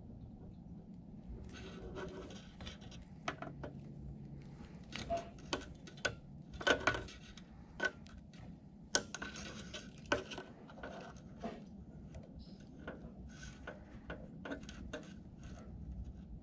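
Irregular light clicks, taps and rustling of wires and small hand tools being handled while joining a car-stereo wiring harness, with a few sharper clicks in the middle.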